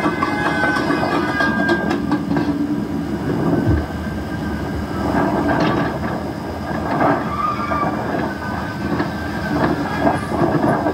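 Car tyres squealing on pavement over a continuous loud rumble of cars, with a few brief louder surges.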